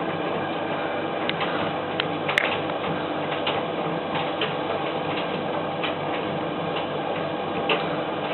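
Servis M2001W tumble dryer running with a half load of whites, a steady hum and rumble of the turning drum with irregular light ticks and clicks.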